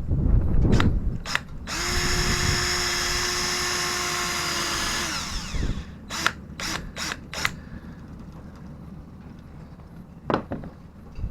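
Power drill running at a steady speed for about three and a half seconds, then spinning down as the trigger is released. Some knocks before it and a quick run of four sharp clicks after it.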